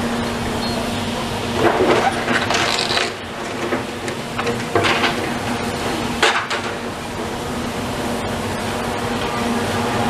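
Demolition machinery running with a steady hum while rubble and debris clatter and crash down in three bursts, about two, five and six seconds in.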